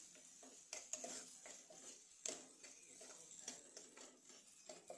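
A steel spoon scraping and tapping against a nonstick pan while stirring diced onions and turmeric frying in oil: faint, irregular taps and scrapes over a faint steady sizzle.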